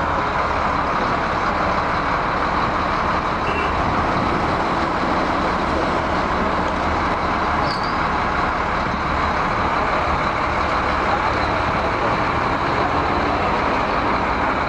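Large wheel loader's diesel engine idling steadily.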